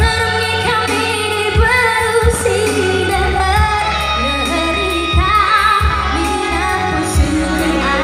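A woman singing a melody with vibrato, amplified through a PA, over backing music with a deep bass.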